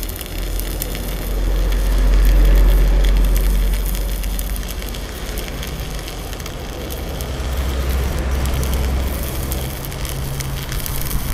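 Stick-welding arc from a Marula inverter welder burning a 3.2 mm electrode on thick steel plate: a steady crackling sizzle, running smoothly. A low rumble swells under it twice.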